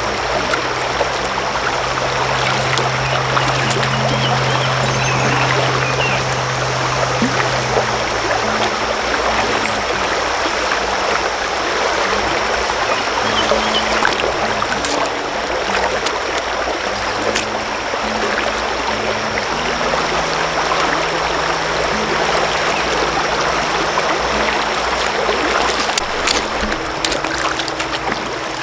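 Steady rush of flowing creek water, with low sustained notes of background music changing every few seconds underneath.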